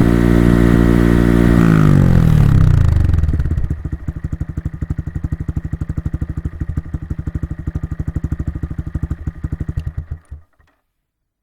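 Honda Monkey 125's single-cylinder four-stroke engine, heard through its exhaust, held at high revs. It then drops back to idle over about two seconds and idles with an even, quick pulse before being switched off near the end.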